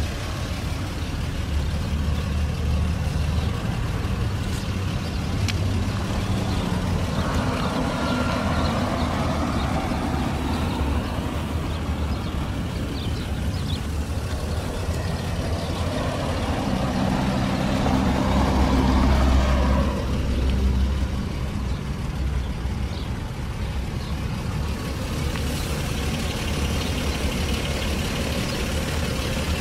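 A 1996 Toyota Crown S150's 1JZ 2.5-litre inline-six idling steadily with a low hum. Twice a louder rushing noise swells and fades over it.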